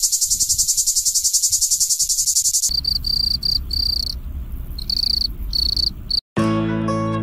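A cicada's loud, high buzzing song, pulsing rapidly, gives way after about two and a half seconds to field crickets chirping: clear, high, ringing chirps in short runs with gaps between. Near the end, plucked guitar music starts.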